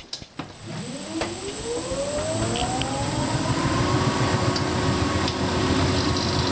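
Hotpoint Active Care NTM1182XBUK heat pump tumble dryer starting a bed and bath cycle: a click, then the motor spins up with a whine that rises in pitch for about three seconds and then holds steady. A low rumble and a faint high whine run underneath, with a few light clicks.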